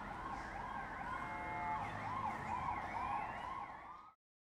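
Emergency vehicle siren wailing in fast up-and-down sweeps, about two a second, with a second siren tone gliding upward near the end. The sound cuts off abruptly about four seconds in.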